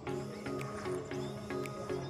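Background music: steady held notes that change in steps, with light ticking percussion about every half second.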